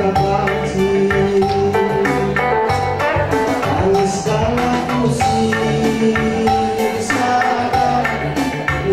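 A man singing a song into a microphone over an amplified band accompaniment with a steady beat, holding long sustained notes.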